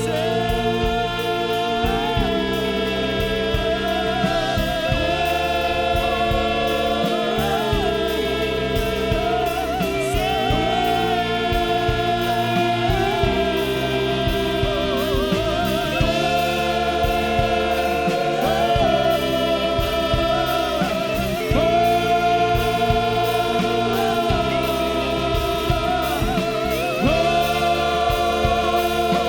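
Live contemporary worship music: sung vocals with vibrato held over a full band with a steady beat.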